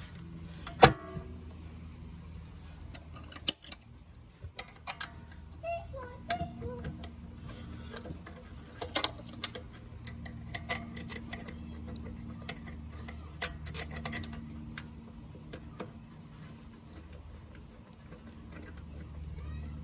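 Scattered metallic clicks and taps as a pressure washer pump is fitted onto the engine shaft and its mounting bolts are handled and started by hand, with one sharp knock about a second in.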